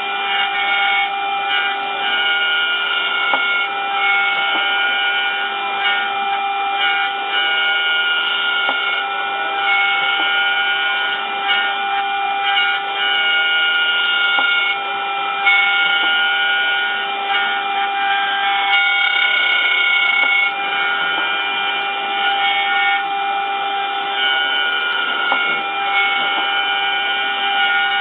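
Mini 5-axis CNC router cutting an impeller: a steady spindle whine with the axis motors' tones starting, stopping and changing pitch every second or two as the tool moves through the toolpath.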